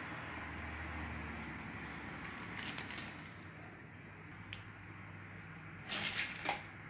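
Faint handling noises over steady room tone: baking paper rustling and light clicks as thin chocolate decorations are peeled off the sheet and pressed onto the side of a cake, with short bursts about three seconds in and again near the end.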